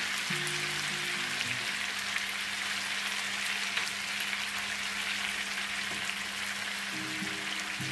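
Marinated chicken drumsticks sizzling steadily as they fry in oil and butter in a pan on high heat, with a spatula turning the pieces now and then. Faint background music plays underneath.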